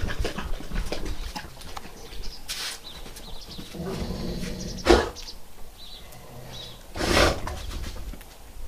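A dog briefly making noise twice, about five and seven seconds in, over a low rustling background.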